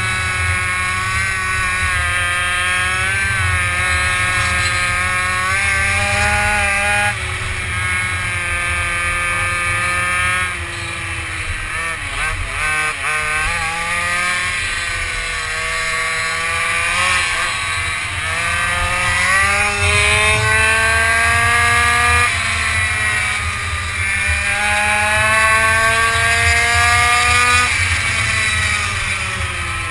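Racing quad's engine heard from on board, pitch climbing steadily under throttle and dropping back sharply several times as the quad goes round corners.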